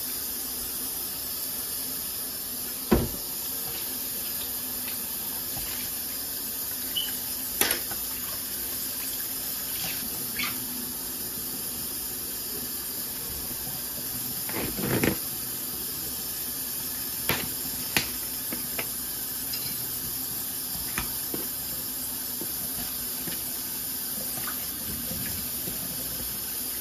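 Kitchen tap running steadily into a sink, with a few sharp knocks and clinks against it.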